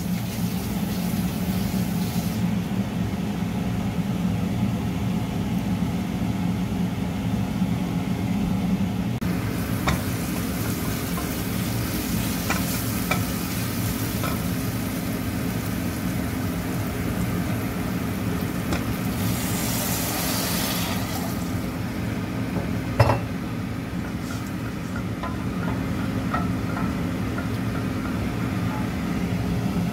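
Chopped onions sizzling in oil in a stainless steel pot, stirred with a wooden spoon that knocks against the pot a few times, over a steady low hum. About twenty seconds in, a louder hiss swells as water is added to the hot pot.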